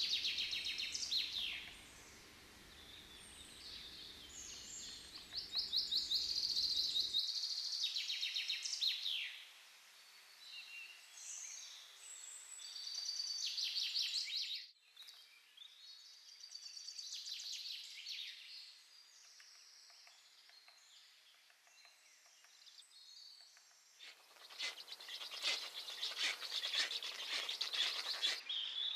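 Songbirds singing: repeated high, fast trills and chirps. A low background rumble cuts off suddenly early on, and a few seconds of rapid clicking come near the end.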